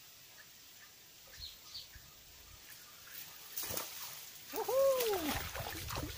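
A snakehead fish splashing and thrashing at the water's surface as it is reeled in to the bank, starting a little past halfway. Over the splashing comes one short call that rises and falls in pitch.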